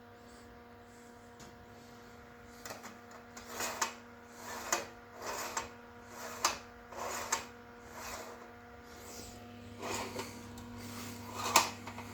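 Old slide projector running with a steady hum, and from about three seconds in a string of irregular clicks, scrapes and rattles, roughly one a second, as slides are handled and pushed into it.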